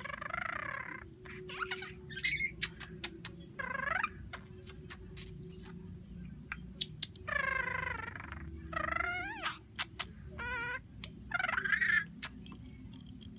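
Budgerigar chattering and warbling in about six short bursts of wavering, pitched calls, with many sharp clicks in between.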